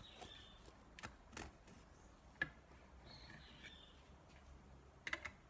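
Mostly quiet, with a few faint clicks and taps from a kitchen knife cutting a cake against a ceramic plate. The sharpest tap comes about two and a half seconds in, and a quick cluster of clicks comes near the end.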